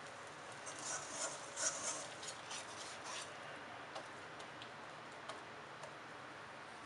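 Wire balloon whisk mixing thick flour-and-egg batter in a stainless steel bowl, its wires ticking and scraping against the metal in a quick run of strokes during the first few seconds, then a few single taps.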